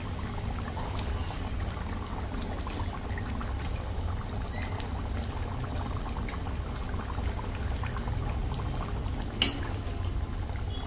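Fish curry with hog plums bubbling at a steady boil in a kadai, with a low rumble underneath. Near the end a spoon clinks once, sharply, against the pan.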